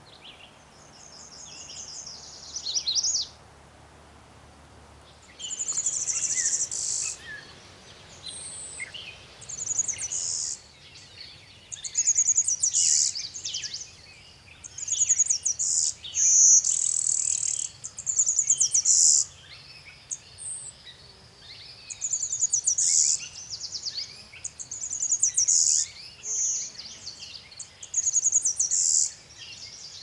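A Magnolia Warbler sings one short phrase near the start. Then a Golden-winged Warbler sings its high, buzzy song over and over, a few seconds apart, with other birds chirping faintly in the background.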